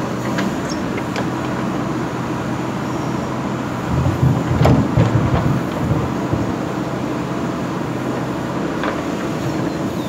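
JCB 3DX backhoe loader's diesel engine running steadily while the backhoe arm swings a bucket of soil over a tipper truck. The engine swells louder for about two seconds midway as the hydraulics work the arm, with a sharp knock or two from the machine.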